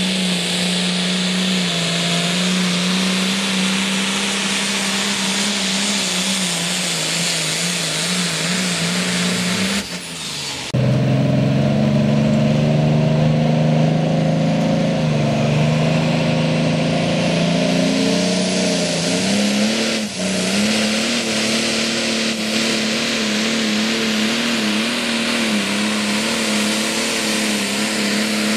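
Modified International diesel pulling tractor under full power pulling the sled, a steady, loud engine drone. About ten seconds in the sound drops out briefly and returns louder, and around twenty seconds in the engine note dips and climbs back up.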